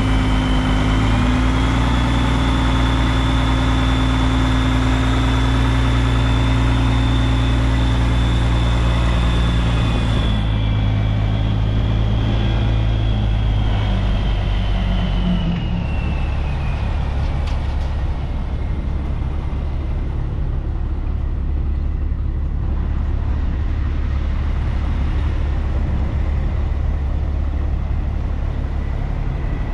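2003 Western Star quad-axle dump truck's diesel engine running while the dump bed is raised, with a high whine over it. About halfway through the whine glides down and the engine note drops to a lower, steady idle.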